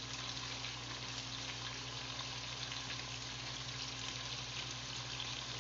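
Chicken and gravy in butter frying in a pot over a low-to-medium gas flame, a steady, even sizzle.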